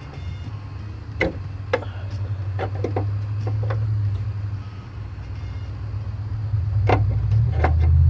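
Low steady hum of a truck engine running at idle, growing louder near the end and cutting off suddenly, with a few sharp clicks and knocks from hand work on the truck.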